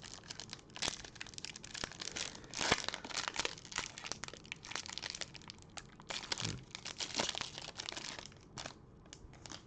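Wrapper of a pack of baseball trading cards crinkling and tearing as it is opened, with the cards being handled: a dense run of crackles and rustles that thins out near the end.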